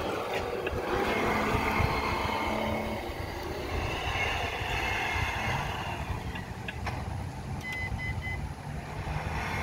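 Imex HG-P408 RC Humvee's onboard sound unit playing a simulated truck engine running steadily as the electric truck drives off. Three short high beeps come about eight seconds in.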